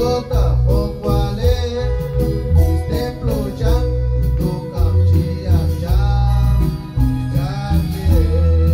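A live band plays: electric bass, drum kit and a keyboard holding a sustained note, under a wavering melodic vocal line.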